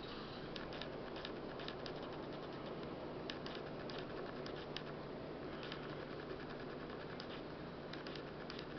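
Aquarium running: a steady hiss of circulating water with irregular small ticks and pops, like air bubbles breaking at the surface.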